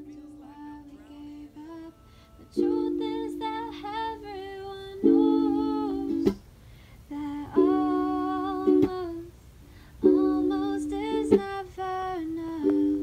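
Outro music: ukulele with a woman's voice singing long held notes in short phrases, with a few sharp strums between them.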